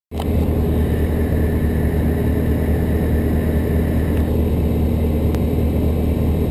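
Pipistrel Sinus motorglider in flight, heard from inside the cockpit: the engine and propeller make a steady, loud drone with a low pulsing hum.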